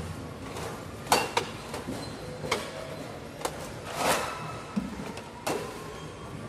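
Stacked plastic bottle crates full of glass bottles being pushed and shifted by hand, giving a series of sharp knocks with brief clinks of glass; the loudest knock comes about a second in, with more scattered through the rest.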